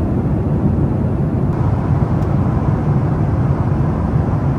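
Airliner cabin noise in flight: a steady, loud, low rush of jet engines and airflow.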